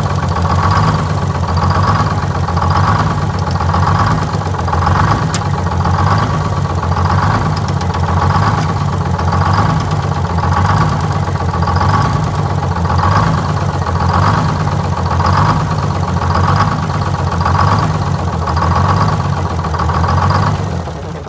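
Detroit Diesel 6-71 two-stroke inline-six diesel idling, with a swell in the sound about once a second. Its injectors are being shorted out to check how evenly each cylinder fires. Near the end the engine shuts off and the sound dies away.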